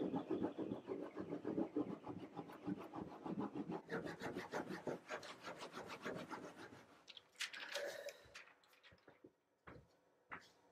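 A baren rubbed rapidly back and forth over the back of the printing paper on an inked woodblock, pressing a mokuhanga impression. The quick rubbing strokes fade out after about seven seconds, followed by a few light taps.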